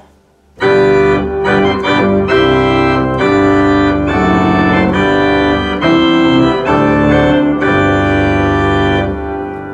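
Viscount Sonus 60 Physis physically modelled digital organ playing the full Great chorus with the 8 ft and 4 ft chorus reeds drawn: a run of loud sustained chords, starting about half a second in and dying away near the end.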